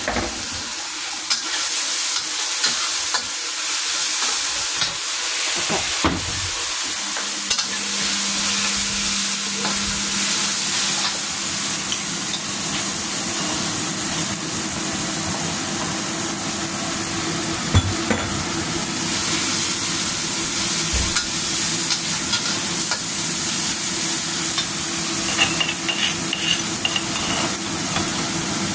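Ground chili spice paste sizzling steadily as it fries in oil in a wok. A metal spatula stirs it, scraping the pan with occasional sharp clicks.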